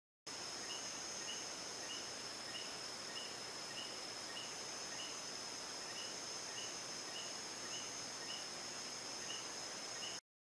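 Night chorus of insects: a steady high-pitched drone of two held tones over a hiss, with a short chirping call repeating about every half second. It cuts off suddenly near the end.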